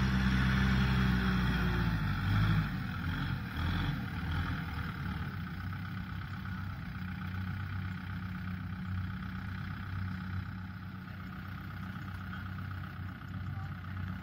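Kubota tractor's diesel engine running, louder over the first few seconds and then steady at a lower level.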